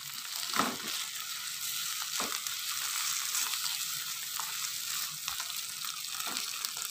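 Ground green chili sambal sizzling in oil in a nonstick wok over low heat, with a steady high hiss. A silicone spatula stirs it, giving a few soft scrapes and knocks against the pan.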